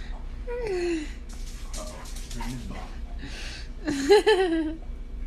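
A large black dog playing over a man lying on a rug, with short pitched vocal sounds: a falling one about half a second in and a louder, wavering one about four seconds in.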